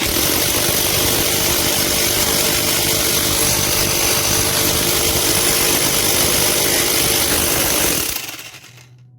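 PR 38 jackhammer running steadily in hammer-only mode, then winding down and stopping about eight seconds in.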